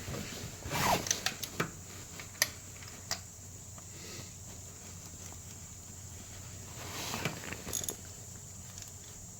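Hand tools clicking and clattering: a short rattling run about a second in and another around seven seconds in, with a few single sharp metal clicks between.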